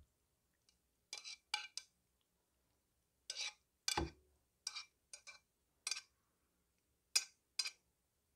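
Chopsticks scraping and clinking against a nonstick frying pan and a ceramic plate as noodles are pushed out of the pan, about a dozen short strokes, with one duller knock about four seconds in.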